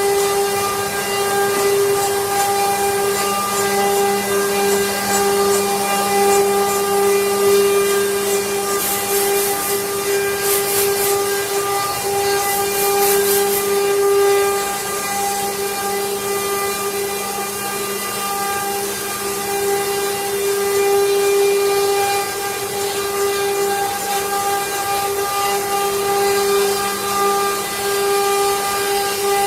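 CNC router spindle running with a steady high whine while its cutter carves wood, with short bursts of sharper hissing cutting noise about nine to fourteen seconds in.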